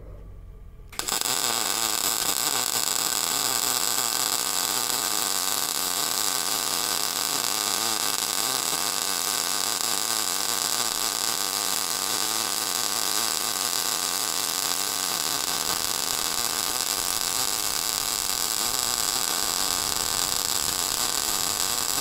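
MIG welding arc that strikes about a second in and then runs as a steady, continuous sizzle while a weld pass is laid around a pipe.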